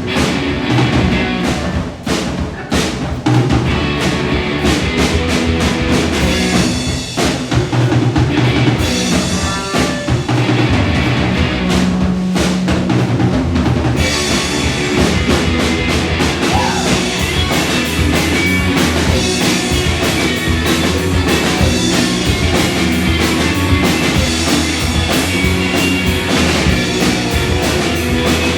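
A live rock and roll band of two electric guitars, bass and drum kit playing. Through the first half the drums hit separate, sharp accents. From about halfway the whole band plays fuller and denser.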